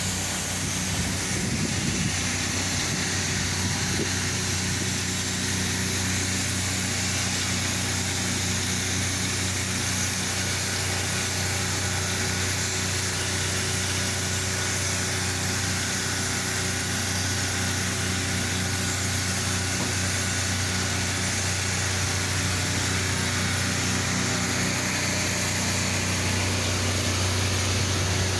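Small engine of a pressure-washing rig running steadily at constant speed, with an even hiss laid over it.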